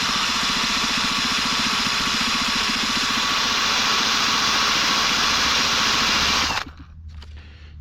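Electric drill running steadily as its bit bores out a snapped-off bolt in a cylinder head, then cutting off suddenly near the end.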